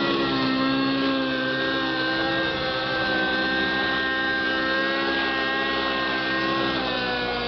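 Radio-controlled model helicopter flying close by, its small engine and rotors making a steady, high-pitched whine that dips slightly in pitch near the end.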